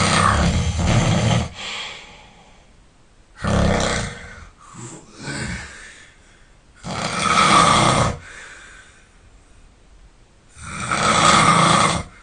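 A sleeping person snoring loudly, four heavy rattling snores about every three and a half seconds, with softer breaths between them.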